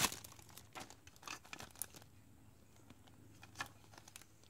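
Light handling noises from a plastic parts basket being unwrapped and turned over in the hands: a brief crinkle of its plastic bag at the start, then scattered small clicks and rustles, with one sharper click near the end.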